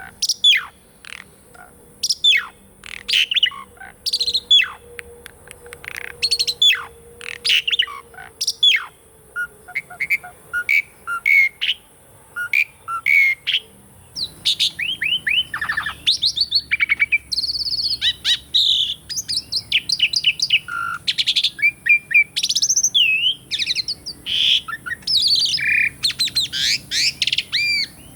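Asian pied starling (jalak suren) singing: a string of sharp, loud, downward-swept whistles, then from about halfway a denser, fast, varied song of rising and falling whistles and chattering notes.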